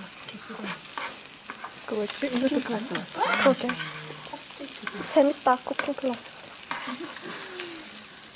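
Pieces of brain and sliced onion sizzling in hot oil in a nonstick frying pan, with metal tongs scraping and clicking against the pan as the pieces are turned. The tongs are loudest a few times between about two and six seconds in.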